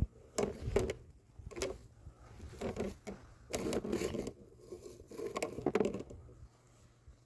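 A series of short, irregular scrapes and knocks, about half a dozen over several seconds, ending about a second before the end.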